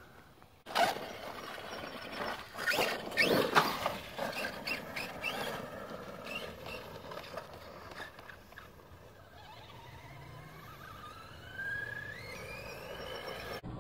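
Arrma Outcast 4S RC monster truck driving over rock and gravel: its brushless electric motor gives a high-pitched squealing whine over clattering for the first few seconds, then a whine that rises steadily in pitch over about four seconds as the truck accelerates.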